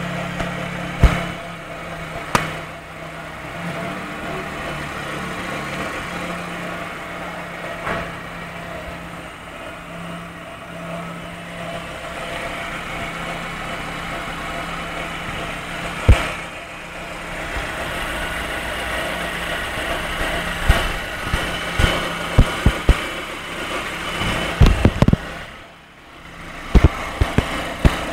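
Fiat car engine idling warm, with an unexplained noise from the timing belt area that began after the belt was replaced. Sharp clicks or knocks sound over the steady idle at irregular intervals, more often near the end.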